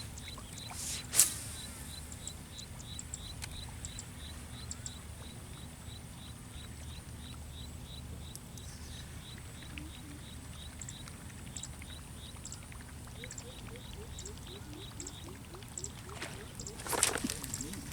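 Fishing reel being cranked to retrieve a lure: a steady ticking about four times a second over a low wind rumble. There is a sharp knock about a second in and a louder noisy burst near the end.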